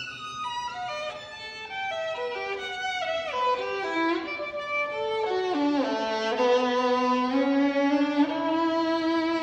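A 2024 violin by László Nemessányi, modelled on Guarneri filius Andreae, played solo with the bow. A run of notes falls from high to low, sliding down into a long low note about six seconds in, then slower held notes climb again.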